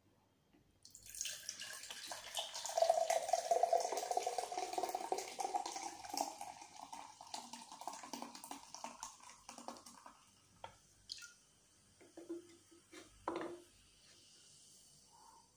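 Mountain Dew poured from a can into a glass mug. The pour rises in pitch as the glass fills, over the fizzing hiss of the carbonation, which thins out after the pour stops. A couple of light knocks come near the end.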